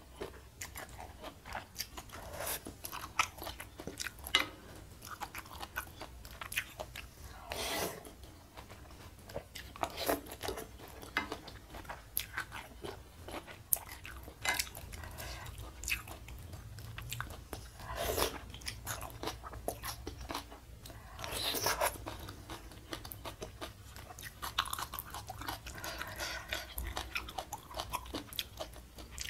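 Close-miked eating of spicy noodle soup with bok choy: wet chewing and crunching, with several short, louder slurps of noodles.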